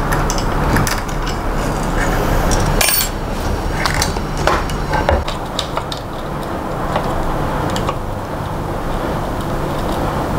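Small metal parts, screws and tools clinking and rattling against an Ender-3 3D printer's aluminium frame and X-axis gantry during hand assembly, many short clicks close together over a low steady hum.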